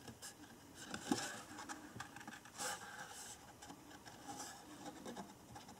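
Small paper scissors cutting a stamped image out of paper by hand: faint, irregular snips with paper rustling and scraping.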